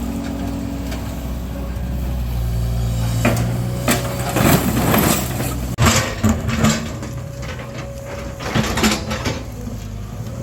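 Excavator's diesel engine running steadily, with bursts of crunching and knocking as debris is broken up and moved, from about three seconds in and again near the end.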